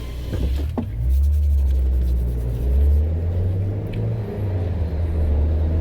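Low, steady drone of a car's engine and road noise heard from inside the cabin while driving. The pitch shifts slightly about a second in and again about three seconds in.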